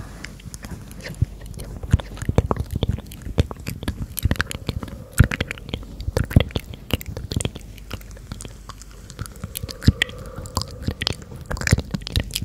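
Unintelligible ASMR whispering close to the microphones, made up mostly of many quick, irregular mouth clicks and lip sounds.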